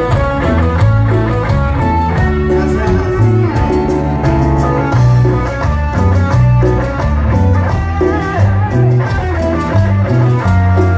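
A live band playing on stage, with electric bass and guitars carrying a steady beat, heard loud from within the audience.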